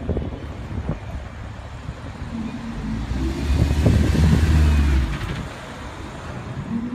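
Audi R8 Spyder driving off past the camera, its engine growing louder as it passes, loudest about four seconds in, then falling away quickly as it moves off down the street.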